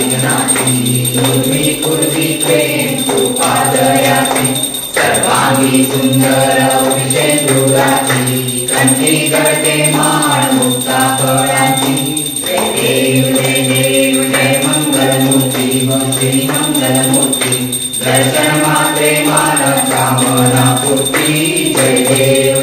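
A Hindu devotional aarti song: a group singing with rhythmic hand-clapping.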